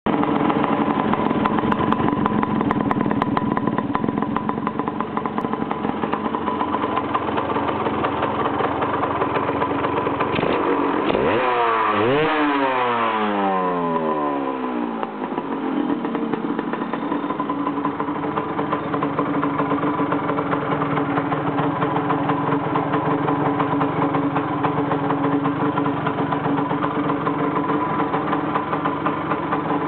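Engine of an RX idling with a steady rumble. About eleven seconds in it is revved once: the pitch climbs sharply, then falls back to idle over about three seconds.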